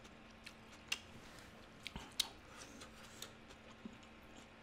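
Faint eating sounds: chewing of somen noodle soup, with a few scattered soft clicks.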